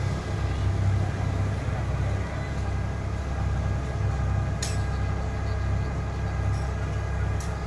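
A large vehicle engine running steadily with a low hum. Two sharp clicks sound over it, one a little past the middle and one near the end.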